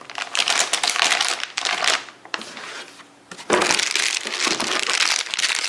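Stiff, hard plastic packaging crinkling and crackling as it is handled. It comes in two stretches, the second louder and starting about three and a half seconds in.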